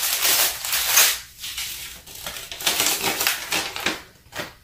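Packaging of a diamond painting kit crinkling and rustling in irregular bursts as it is handled and opened.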